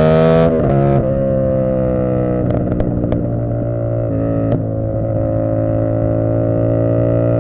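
CFMoto 450SS parallel-twin engine, tuned, pulling with rising revs, then the throttle closes about half a second in. It carries on at low revs, the pitch sagging slowly and then building again, with a few faint clicks in the middle.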